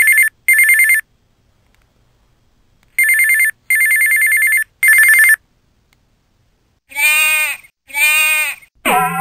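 Electric doorbell ringing in short rapid-hammer bursts: one ending about a second in, then three more in quick succession a couple of seconds later. Then two sheep bleats, one after the other, and music strikes up right at the end.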